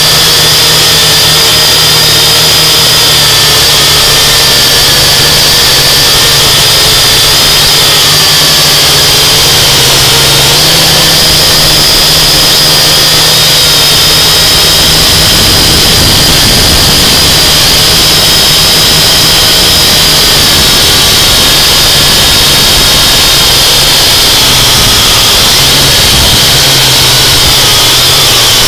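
UDI 842 Falcon quadcopter's motors and propellers heard from the drone itself, a loud steady whine whose pitch wavers slightly as the throttle changes.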